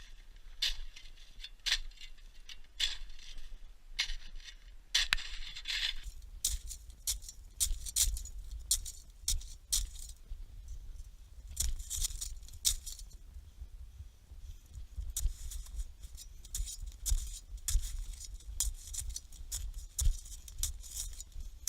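Footsteps crunching in snow, at about one a second at first, then quickening to a steady walking pace of about two a second from about six seconds in, with a low rumble underneath.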